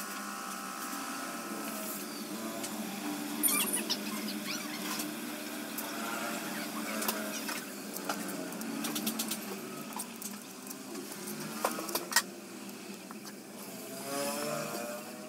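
Enamelled copper magnet wire being worked by hand into the slots of a three-phase induction motor's stator during rewinding: light scraping and scattered sharp clicks, loudest about three and a half seconds in and near twelve seconds, over a steady low hum.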